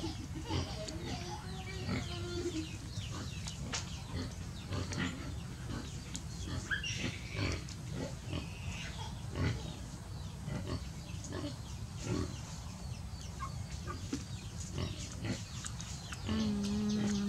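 Short animal grunts and high squeaks among many small clicks and rustles of lotus pods and leaves being handled, with a brief low hum near the end.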